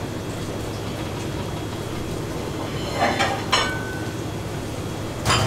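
Steady low rumble of kitchen machinery, with a few brief sharp clatters about three seconds in and again near the end as the fish pieces are handled on the cutting board.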